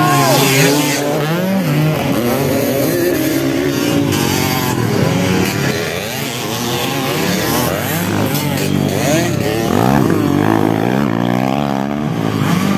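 Several motocross dirt bikes racing, their engines revving up and down over and over as they accelerate and shift.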